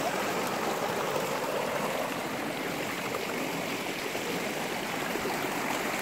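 Shallow rocky mountain stream rushing and splashing over boulders in small cascades: a steady rush of water.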